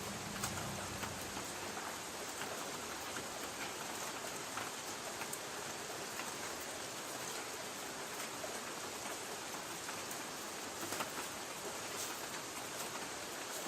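Light rain pattering steadily on a tin roof, a constant hiss dotted with the sharp ticks of single drops hitting the metal.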